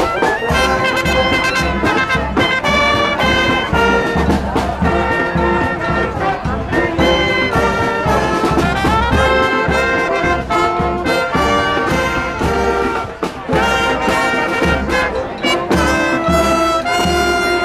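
Small street brass band playing a tune: brass horns and saxophone over a steady low beat.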